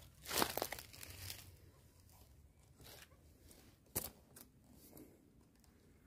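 Footsteps crunching through dry leaf litter: a few separate crunches, the loudest about half a second in and another about four seconds in.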